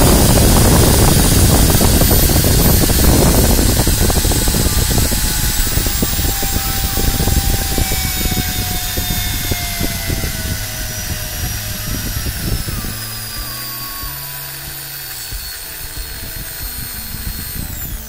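Makita M0600 electric drill running free at high speed, its motor whine falling slowly and steadily in pitch as the SCR speed controller's knob is turned down. Near the end the drill spins down quickly.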